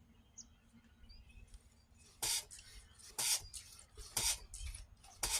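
Manual fluid extractor being hand-pumped, four hissing strokes about a second apart, drawing a vacuum to pull hydraulic oil out of a mini excavator's tank.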